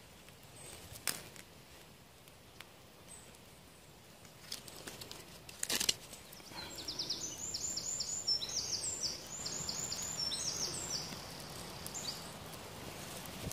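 A songbird singing a rapid run of high, down-slurred notes for about four seconds, starting about six and a half seconds in. Before it come a few sharp knocks or scrapes, the loudest about six seconds in.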